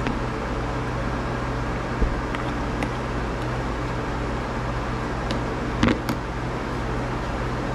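Steady background hum of a fan or air conditioner, with light clicks of a metal fork against a plastic plate and a louder clatter about six seconds in as the plate is set back down on the table.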